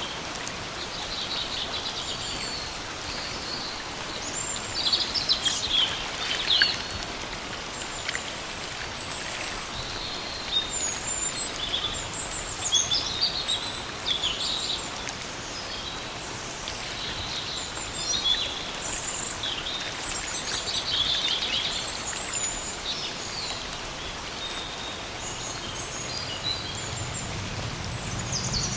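Steady rain falling in a forest, with several birds calling and chirping over it in short trills and phrases throughout.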